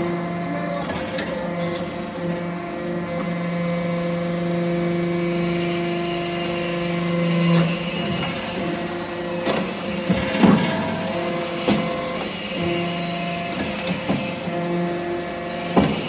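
Hydraulic metal-chip briquetting press running: a steady hum from its hydraulic power unit, with sharp knocks and clunks as the press cycles and pushes out briquettes. The hum drops away a little past halfway and returns in stretches near the end.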